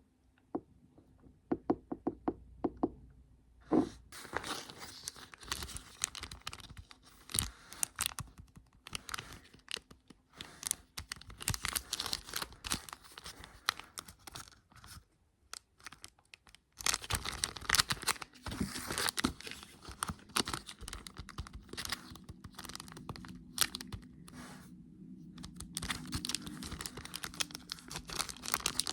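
Packaging being unwrapped and handled up close: a few light taps, then crinkling and tearing from about four seconds in, with a short pause past the middle before it starts again.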